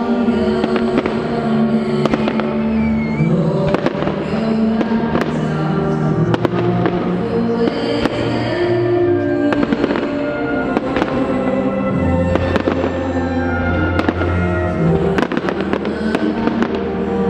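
A fireworks display: many shells bursting with bangs and crackles throughout, over music with held notes and a low bass line.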